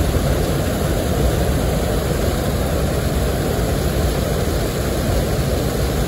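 Water pouring over the stepped concrete spillway of a small check dam: a steady rush of falling water, heaviest in the low end.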